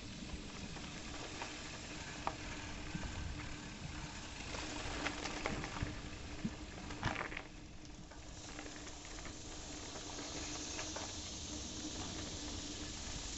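Crackling, rustling movement noise from travelling along a grassy dirt trail: scattered ticks and clicks over a steady hiss, with a faint low hum underneath. The high hiss grows stronger about two-thirds of the way through.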